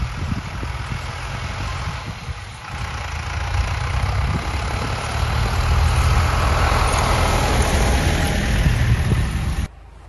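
Forestry tractor towing a log-loader trailer on chained tyres, driving past with its engine running. The low engine sound grows louder as it comes close and passes, then cuts off abruptly just before the end.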